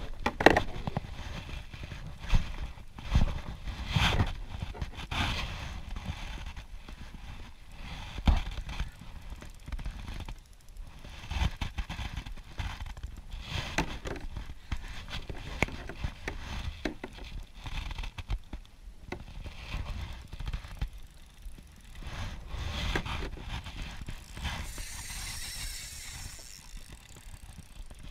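Irregular knocks and clicks from a rod and spinning reel being worked in a plastic kayak, with a brief hiss near the end.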